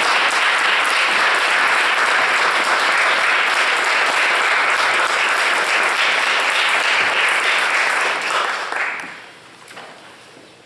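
Audience applauding steadily as the pianists take their places at the piano. The clapping dies away about nine seconds in.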